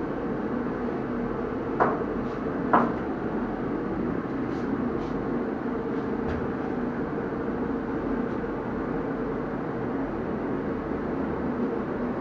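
Steady machine drone with a low hum, and two sharp clicks about a second apart early on.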